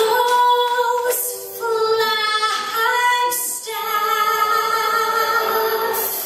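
A woman singing into a handheld microphone, holding several long notes.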